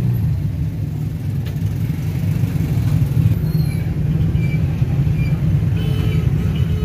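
Motorcycle riding through street traffic: a steady low engine and road rumble, with a few faint high tones from the traffic around it in the second half.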